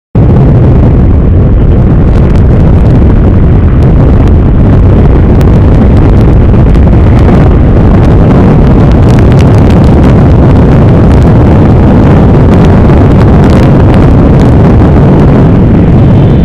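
Loud, steady wind rush buffeting the camera microphone on a Honda XRE 300 motorcycle riding at speed, with the bike's engine running underneath.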